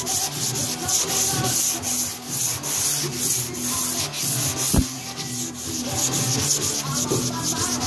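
Block-sanding a car fender's primer and guide coat by hand with 320-grit sandpaper: quick back-and-forth scratchy strokes in a steady rhythm. A single thump about five seconds in.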